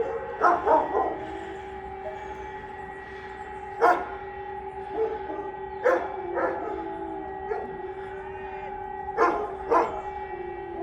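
Electronic civil-defence sirens holding a steady tone during a siren test, with a dog barking loudly over it several times: a quick cluster of barks near the start, then single barks around four and six seconds in and a pair near the end.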